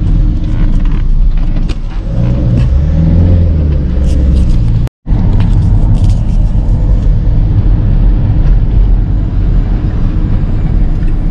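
Car driving on a road, heard from inside the cabin: a loud, steady rumble of engine and road noise, with the engine note rising between about two and four and a half seconds in. The sound drops out for a moment about five seconds in.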